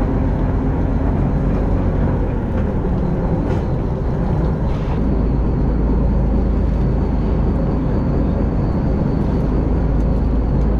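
Fishing boat's engine running with a steady low drone, growing slightly heavier about halfway through.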